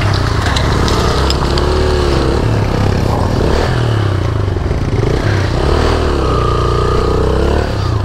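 Motorcycle engine running on a steep off-road climb, its pitch rising and falling as the throttle changes.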